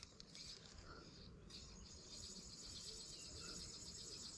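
Near silence with faint, steady, high-pitched insect chirring.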